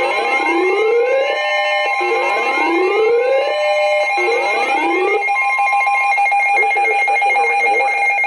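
Electronic siren alarm: three rising wails, about two seconds apart, over a steady alarm tone. The wails stop about five seconds in while the steady tone holds, with some rough noise under it near the end.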